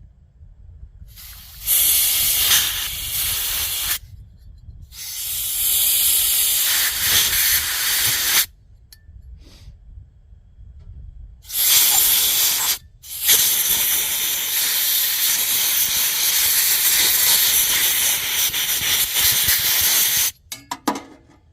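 Compressed air blown in bursts through the heater's fuel nozzle to clear it: four loud hissing blasts, the last and longest lasting about seven seconds.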